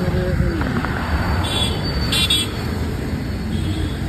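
Road traffic on a wet city street: a steady rumble of passing car and motorbike engines and tyres. A tone falls in pitch just under a second in, and two short high-pitched sounds come about a second and a half and two seconds in.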